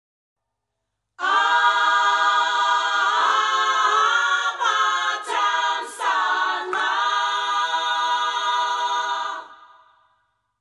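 Voices singing a held chord a cappella, starting about a second in, with a few notes sliding up and down in the middle before the chord fades out near the end.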